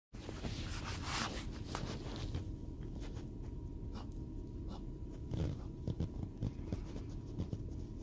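Scattered rustles, light clicks and a few soft thumps, with a brief hiss about a second in, over a steady low rumble inside a car.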